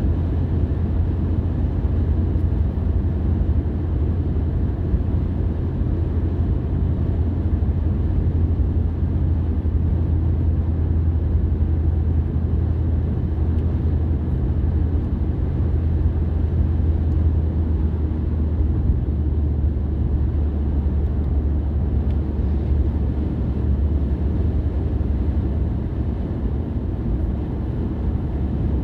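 Steady low rumble of a car being driven: engine and road noise that holds an even level throughout.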